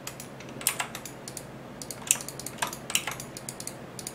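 Computer keyboard keys clicking in short irregular clusters, a dozen or so sharp keystrokes spread across the few seconds.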